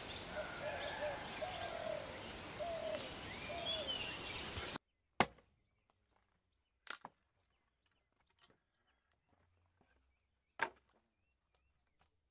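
Birds chirping over a steady outdoor background for the first five seconds. Then an axe splitting firewood: a sharp chop about five seconds in, two lighter knocks close together about seven seconds in, and another chop near ten and a half seconds.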